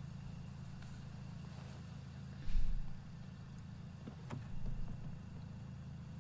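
A steady low rumble, with one dull thump about two and a half seconds in and a few faint clicks a little later.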